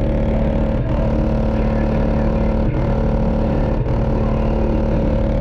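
A car audio system playing music loud through a single Resilient Sound Platinum 15-inch subwoofer, with heavy, steady low bass filling the sound and a few brief breaks.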